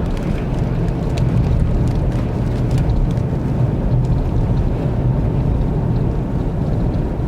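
Blizzard wind buffeting the microphone: a loud, steady, deep rumbling roar with faint scattered ticks above it.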